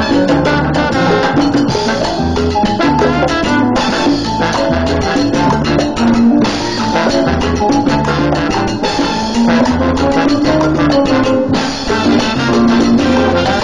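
Live salsa band playing, with congas, keyboard and electric bass over a repeating bass line.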